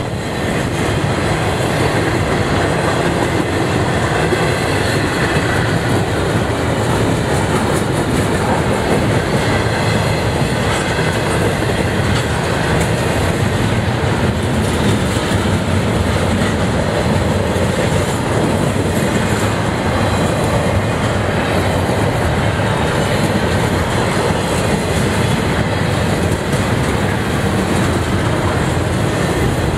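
Double-stack intermodal freight cars rolling past at speed: a steady, loud rumble of steel wheels on the rails.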